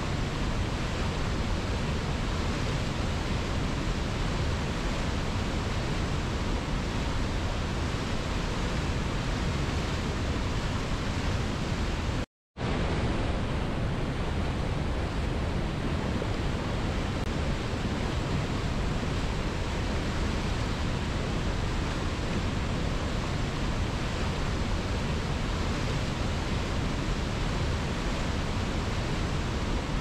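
Mountain river rapids: a steady rush of whitewater pouring over boulders. The sound cuts out completely for a split second about twelve seconds in.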